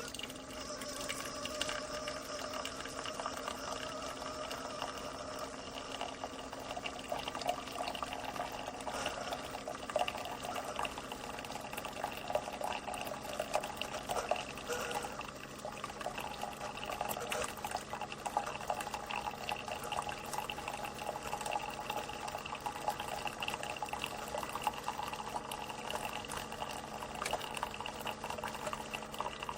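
Keurig K-Express single-serve coffee maker brewing: a steady mechanical hum with liquid pouring and filling a cup, running evenly throughout.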